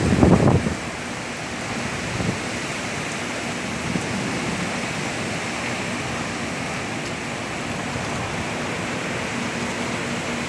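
Heavy downpour of rain pouring steadily in high wind, with a brief louder gust of low rumble right at the start.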